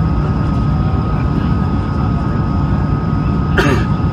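Steady cabin noise of an Airbus A220-300 on approach, heard from inside the cabin: a low rumble of airflow and its Pratt & Whitney PW1500G engines, with a steady high tone running through it. A short, sharp sound cuts in near the end.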